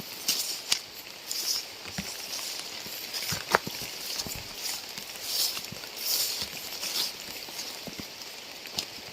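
Rain falling with a steady hiss, with irregular sharper taps of drops landing close by, the loudest a little past three and a half seconds in.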